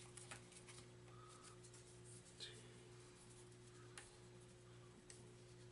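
Near silence: faint steady room hum with a few soft ticks of cardstock playing cards being counted out by hand.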